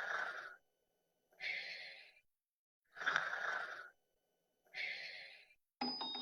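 A series of short, breathy hissing bursts, about one every second and a half, each starting sharply and fading away. Near the end, chiming music notes start.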